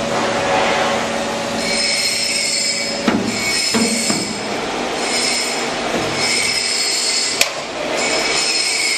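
High-pitched metal-on-metal squealing from a wrought-iron forming machine working steel bar, coming in bursts of about a second that repeat over and over, over a steady machine din, with two sharp metallic clanks.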